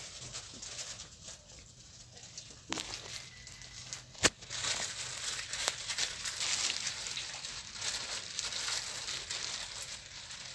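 Polythene bags packed with straw crinkling and rustling as they are handled and hung one below another on a rope, with a sharp click about four seconds in.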